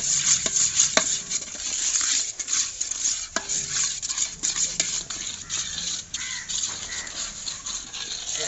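Spoon stirring onion-tomato masala in a cooking pot: repeated scraping and knocks against the pot, over the sizzle of the masala frying.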